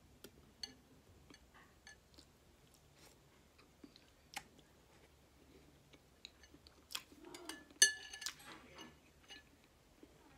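Close-miked eating sounds: small crackles and clicks of eggshell being picked off a sauce-coated boiled egg, with soft chewing and taps on a glass bowl. A louder burst of crackling with a sharp clink comes about eight seconds in.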